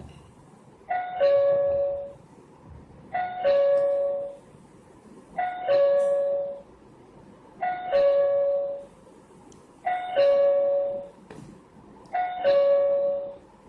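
Wi-Fi video doorbell's two-note ding-dong chime ringing six times, about every two seconds, each a higher note then a longer, lower one: an incoming doorbell call left unanswered, which keeps ringing until its ring cycle ends.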